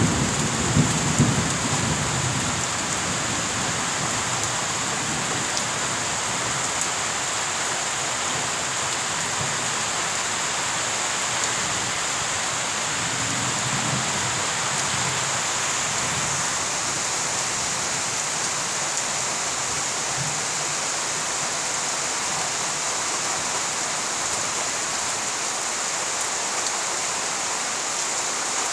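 Steady rain falling, with a low rumble of thunder dying away in the first couple of seconds.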